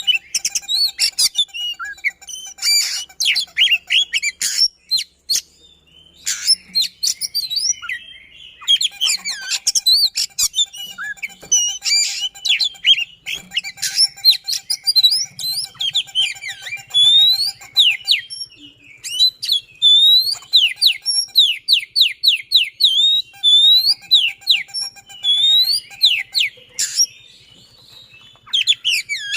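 An oriental magpie-robin (kacer) singing a loud, fast, tightly packed song of quick rising and falling whistled notes and trills, breaking off briefly a few times. This rapid, close-set delivery is what keepers call "speed rapat", played as a lure to set other magpie-robins singing.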